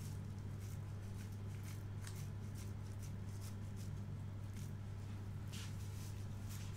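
Hands shaping soft minced-chicken kabab mixture: faint, scattered soft handling and squishing ticks over a steady low hum.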